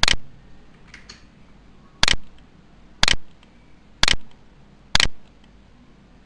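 Computer mouse clicking: five sharp single clicks, roughly a second apart.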